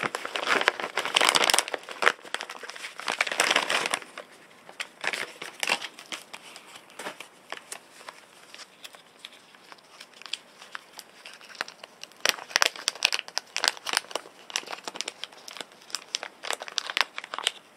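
Plastic blister-card packaging crinkling and crackling as it is handled and turned over. The crackling is loudest in the first four seconds, thins to scattered clicks, then picks up again in a run of crackles near the end.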